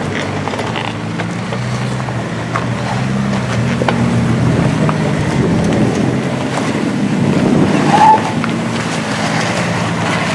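Lifted Jeep's engine running steadily at low revs as it crawls slowly over granite rock, with scattered clicks and knocks from the tyres and chassis on the rock. A brief high squeal about eight seconds in is the loudest moment.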